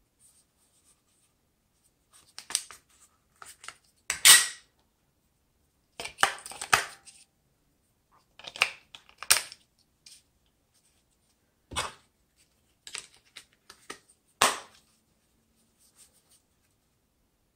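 Scattered plastic clicks, scrapes and rattles from a TOTO washlet remote control being handled while its battery cover is opened, AA batteries are fitted, and the cover is closed again. About a dozen short, separate sounds with near silence between them; the loudest come about four and nine seconds in.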